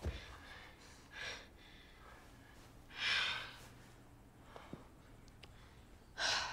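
A woman crying without words: three sharp, breathy gasps and sighs a few seconds apart, the loudest about three seconds in, over faint room hum.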